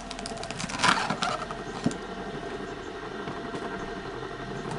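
Homemade screw-cone log splitter running on its 3 kW three-phase electric motor through two V-belts, a steady machine hum with a held tone. About a second in there is a loud rough burst as the spinning cone bites into and splits a log, then a short sharp knock just before two seconds.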